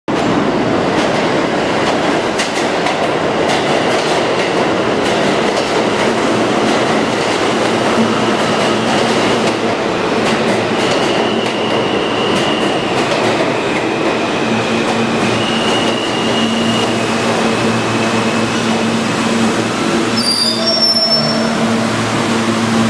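New York City subway R160 train running into an underground station and braking to a stop: a loud rush of wheel and track noise with clacking over rail joints, then a high whine that shifts in steps as it slows, brief squeals about twenty seconds in, and a steady low hum once it has stopped.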